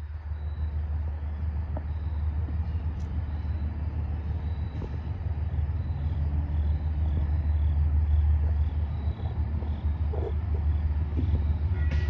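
Approaching Metro-North express train: a low rumble that grows steadily louder as it nears.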